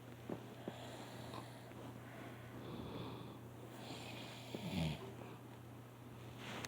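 A sleeping man snoring: slow, noisy breaths with a short, louder low rasp about five seconds in, over a faint steady hum.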